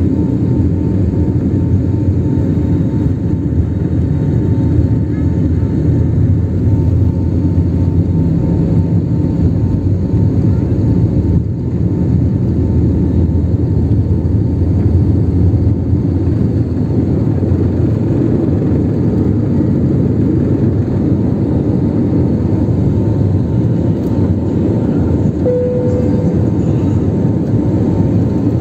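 Jet airliner's engines at takeoff power heard from inside the cabin over the wing: a steady, loud, deep rumble with a faint whine as the plane rolls down the runway and lifts off.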